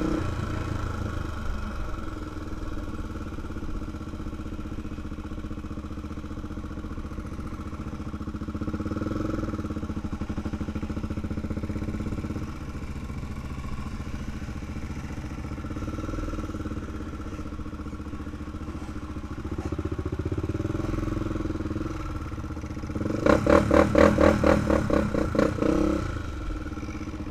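2005 Honda 400EX ATV's single-cylinder four-stroke engine running on a gravel trail, rising and falling with the throttle, with clatter from the machine and stones under the tyres. Near the end it turns louder and pulses rapidly for a few seconds.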